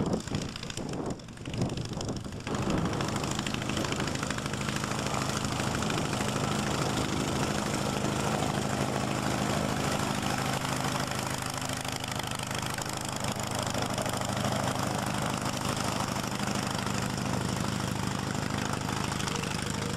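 A Wallis autogyro's small piston engine running at a steady idle, driving its pusher propeller. It is uneven for the first couple of seconds, then settles into a steady beat.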